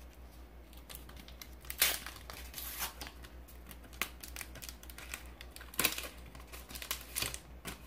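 Foil Pokémon booster pack wrapper crinkling and tearing open, in irregular sharp crackles, loudest about two seconds in and again near six seconds.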